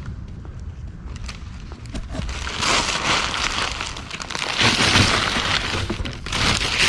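Paper and masking tape rustling and crinkling as they are gathered up, in three bursts about a second long each, with a few light knocks.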